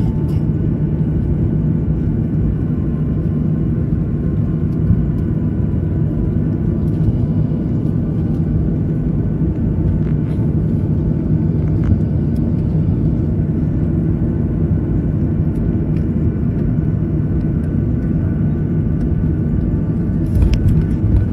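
Jet airliner's engines running as the plane taxis, heard inside the cabin as a steady low rumble with a faint thin whine over it. There is a brief louder surge near the end.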